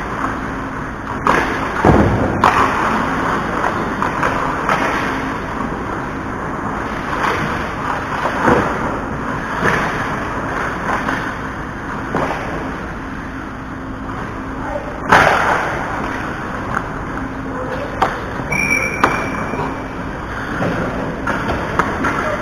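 Ice hockey in play: a steady wash of skate and arena noise, broken by sharp knocks of sticks, puck and boards. The loudest knocks come about two seconds in and about fifteen seconds in, and a brief high tone sounds near the end.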